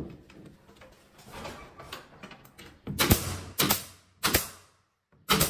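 Panel being handled and pressed into place, then a pneumatic nail gun firing four times into the ceiling panels, each a sharp crack with a short burst of air hiss, about two-thirds of a second apart.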